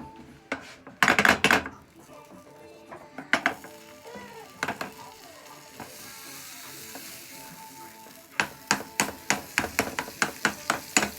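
Pancake batter sizzling in a hot frying pan, with a clatter of kitchen utensils about a second in. Near the end a utensil beats against a mixing bowl in quick, regular taps, about three or four a second.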